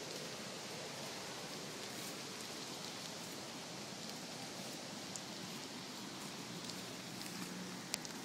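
Steady rushing noise of the Toroki Falls waterfall, with a single sharp click near the end.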